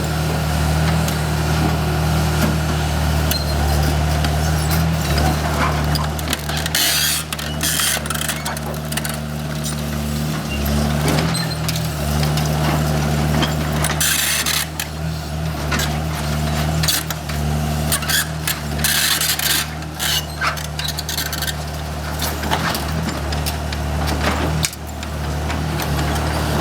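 O&K RH6 hydraulic excavator's diesel engine running steadily under load, with several harsh bursts of crunching noise lasting about a second each as the car body beneath it is crushed.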